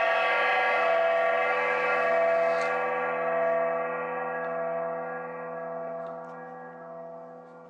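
A gong sound from the Arduino lap counter's sound card, struck just before and ringing on, steady at first and then slowly fading away over several seconds.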